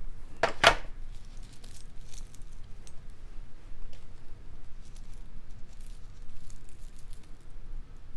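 Small metal and glass jewelry parts clinking and rattling as a charm bracelet with dangling glass leaf beads, metal flowers and jump rings is handled, with light scattered clicks and one louder pair of clicks about half a second in.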